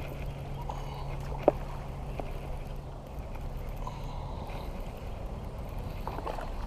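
Spinning reel being cranked to wind in line, a steady low whirr, with one sharp click about a second and a half in.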